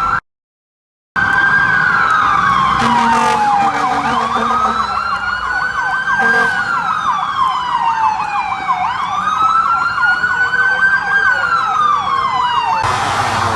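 Fire-rescue vehicle sirens: a slow wail rising and falling about every five seconds, with a fast yelp warbling over it. The sound drops out for about a second near the start, and the sirens stop shortly before the end, leaving engine and road noise.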